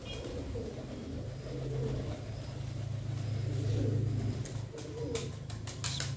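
Domestic pigeons cooing while they feed in a flock, over a steady low hum. Near the end come quick sharp flutters and clicks, as of wings flapping and beaks pecking at grain.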